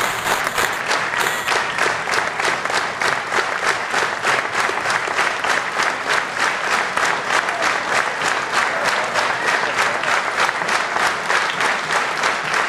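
Audience applauding, the claps falling into an even beat of about four a second.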